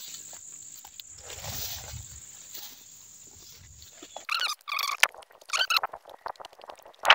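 Footsteps swishing through tall grass and then onto soft, wet mud, over a steady high insect trill. About four seconds in, a bird gives several short, repeated calls, followed by quick small clicks and squelches of steps in the mud.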